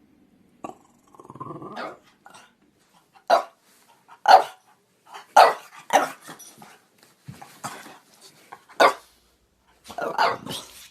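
French bulldog giving a low grumbling growl, then a run of short, separate barks about a second apart.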